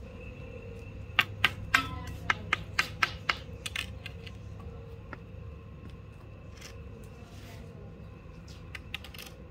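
A rooster's beak pecking grain off a concrete floor: a quick run of sharp taps, about four a second, starting about a second in and lasting a couple of seconds, then a few scattered taps near the end.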